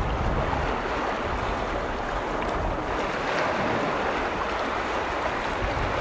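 Small lake waves washing against the shore: a steady rushing of water with faint splashes.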